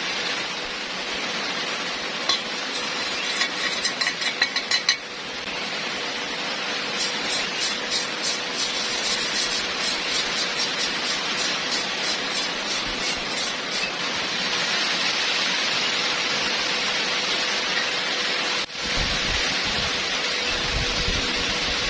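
Electric arc welding: the arc gives a steady crackling sizzle, with a quick run of sharp clicks about four seconds in and a brief break near the end.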